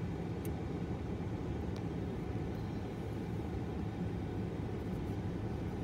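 Freight train of autorack cars rolling past at a steady pace, a continuous low rumble with a few faint ticks on top.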